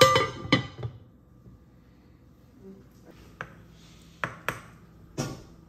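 A metal pan lid set down onto a skillet with a loud ringing clank, followed by a second lighter knock. A few seconds later there are several short clinks of dishes.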